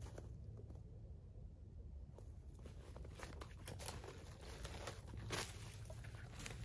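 Footsteps crunching in snow, with twigs and spruce branches crackling and brushing as someone pushes through brush. The crunching starts about two seconds in and comes irregularly, the loudest crunch near the end.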